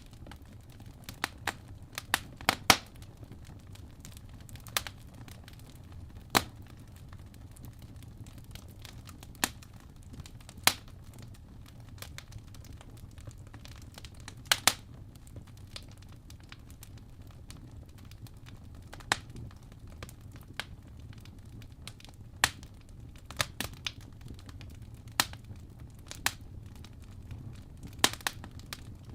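Wood fire crackling: irregular sharp pops and snaps, sometimes singly and sometimes two or three in quick succession, over a steady low hum.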